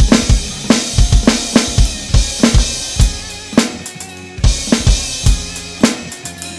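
A rock drum groove played on an Alesis electronic drum kit: kick, snare, hi-hat and cymbal hits in a steady beat over the song's backing track. The kick drops out for a moment about four seconds in, then the groove picks up again.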